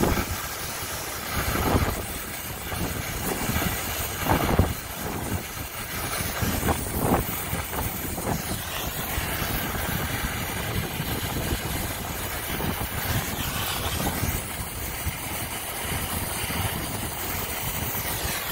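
Brazing torch flame burning at the copper refrigerant lines with a steady rushing roar, with a few brief louder surges.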